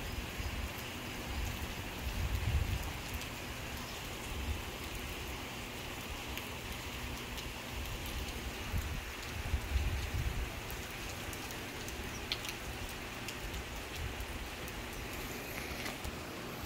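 Steady rain falling on wet ground and roofs: an even hiss with scattered drop ticks, and a few low rumbles about two seconds in and again around nine to ten seconds in.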